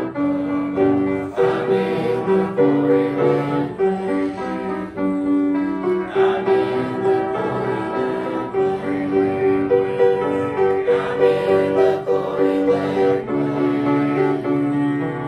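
Instrumental music from a recorded accompaniment track, steady sustained notes with no singing.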